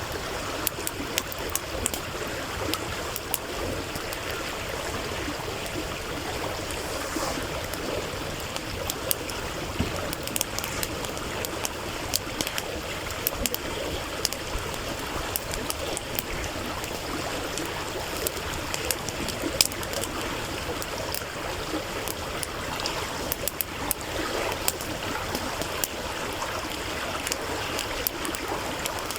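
Stream water running steadily, with a wood campfire crackling over it in sharp, irregular pops.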